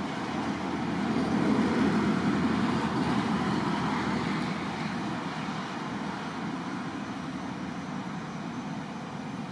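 Steady rushing noise of passing road traffic, swelling in the first few seconds as a vehicle goes by, then settling back to a steady hum.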